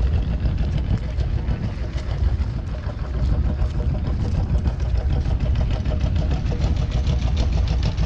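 An engine idling steadily: a continuous low drone with a fine, even ticking over it.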